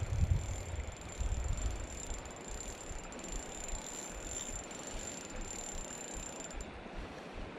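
Spinning reel being cranked while a hooked fish pulls on the line, a soft mechanical winding sound. A low rumble on the microphone fades over the first two seconds.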